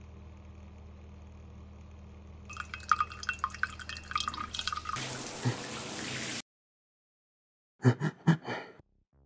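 Water from a tap splashing and dripping as hands throw it onto a face at a sink, rising to a brief rush of running water that cuts off suddenly. A low steady hum comes before it, and a few seconds later there are four quick, loud thumps.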